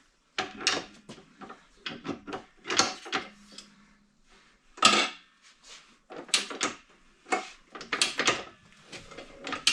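A motorcycle rear tire being levered off its wheel rim on a manual tire changer: a string of irregular knocks and clunks from the tire iron and the tire bead working against the rim.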